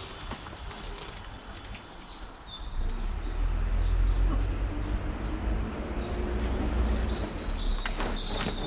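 Birds chirping in short, high, falling notes, in quick runs early on and again near the end. Through the middle a low rumble comes up and is the loudest sound.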